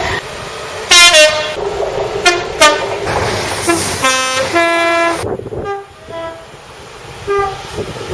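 Train horns sounding a string of short blasts, among them a two-tone horn giving a low note followed by a higher one about four seconds in, over the noise of running trains.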